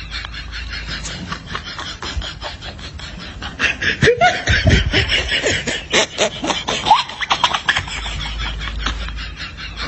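Laughter in short snickering bursts, growing louder about three and a half seconds in and dropping back near eight seconds.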